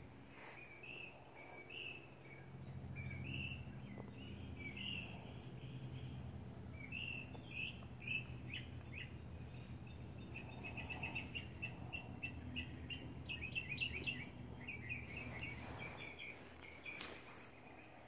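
Small songbirds chirping and singing, with short separate chirps at first and then a quick run of rapid chirps partway through, over a low steady hum.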